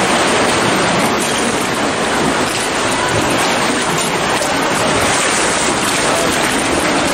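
Steady rush and splash of seawater around a kayak as it is paddled through a narrow sea cave, with no single splash standing out.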